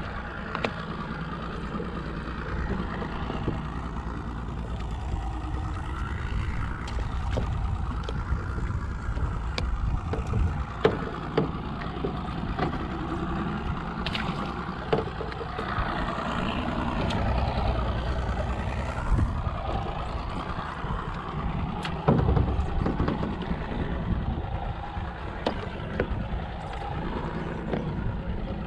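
Steady low rumble of a small fishing boat at sea, with water and wind noise, under scattered light clicks and taps from hands handling fishing line and baiting a hook.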